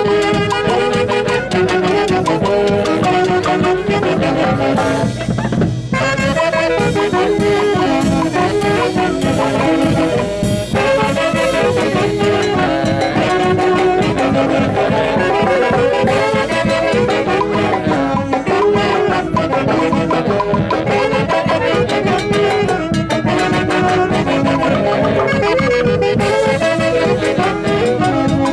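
Band music with brass instruments carrying the melody over a steady dance beat, with a short break about five seconds in.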